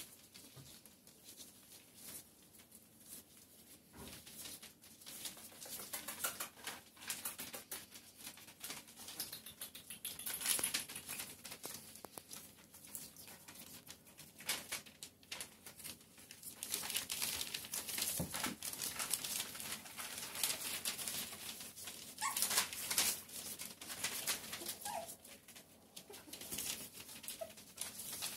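Shetland sheepdog puppies scrambling and tussling on newspaper, the paper rustling and crinkling irregularly, with a few brief high whimpers late on.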